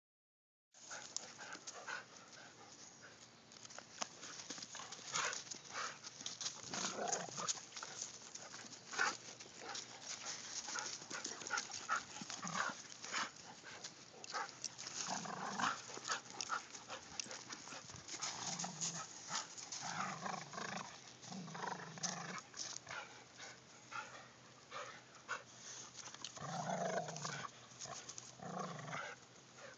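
Two dogs play-fighting and tugging over a stick, with scuffling and sharp clicks throughout and a run of short dog vocal sounds in the second half.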